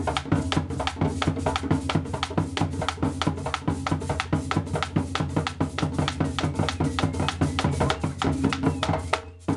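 Background music with a steady drum-kit beat, about four beats a second, over a steady bass line, dipping briefly near the end.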